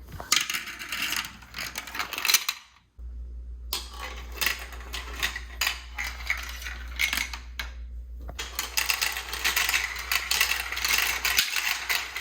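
Marbles rolling and clattering down a plastic marble run: a dense, irregular patter of quick clicks and ticks, with a brief break about three seconds in.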